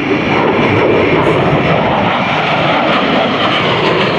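A-10 Thunderbolt II's twin TF34 turbofan engines in a loud, steady rush of jet noise as the jet makes a low pass.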